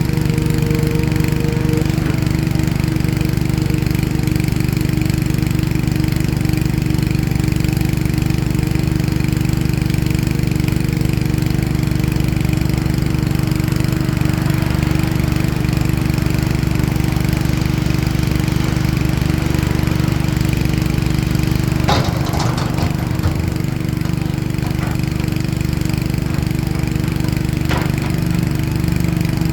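Heavy diesel engine of a CAT excavator running steadily. A few sharp knocks come about three-quarters of the way through, and another near the end.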